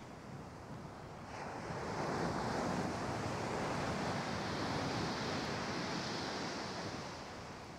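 Sea surf breaking on a shingle beach, one wave surging in and growing louder about a second and a half in, then easing off near the end.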